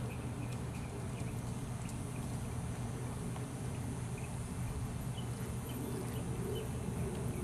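Soft hoofbeats of a Missouri Fox Trotter horse fox-trotting on grass under a rider, over a steady low rumble.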